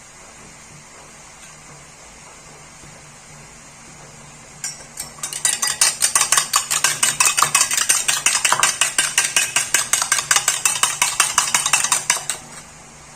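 A fork beating eggs against the side of a bowl: a fast, even run of clinks, about five a second, that starts about five seconds in and stops shortly before the end. Before it there is only a low steady hum.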